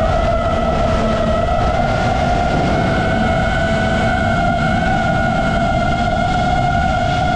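Electric motor and propeller of a small FPV aircraft in fast flight: a steady whine that wobbles slightly in pitch, over heavy wind rush on the onboard microphone.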